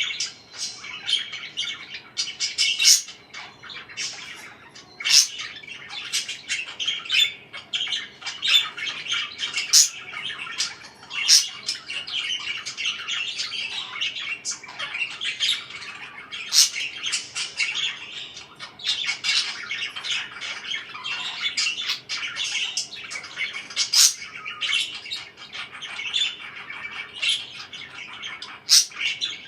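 Pet parakeets chirping and squawking continuously, a busy stream of twittering broken every second or so by sharp, shrill squawks.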